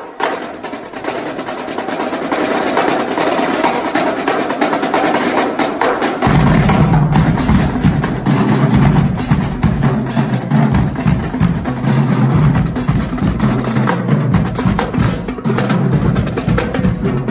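A marching drumline plays. Snare drums and tenor drums rattle out fast, dense rhythms alone at first, then about six seconds in the bass drums join with a heavy low beat.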